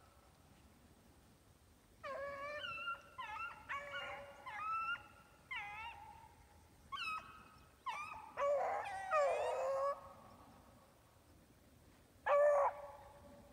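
An animal's short, high calls with bending pitch, a quick run of a dozen or so over about eight seconds, then one more near the end.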